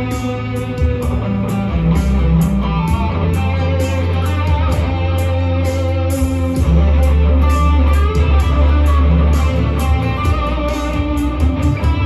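Electric guitar, a Telecaster-style solid-body, playing an improvised melodic line over a backing track with a steady drum beat and sustained bass notes.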